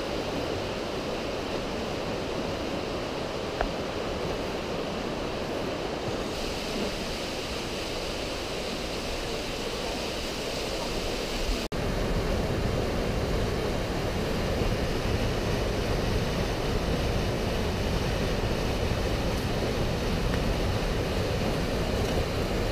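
Whitewater of the Breitach river rushing through the ice-lined gorge, a steady rush of water. It gets louder after a sudden break about halfway through, when it is heard from right above a small foaming cascade.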